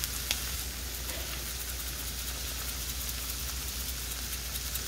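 Browned ground beef sizzling steadily in a skillet, a fine even crackle, with one sharper click shortly after the start.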